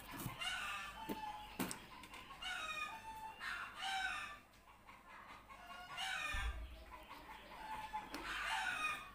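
Chickens clucking and calling faintly, several short pitched calls scattered through.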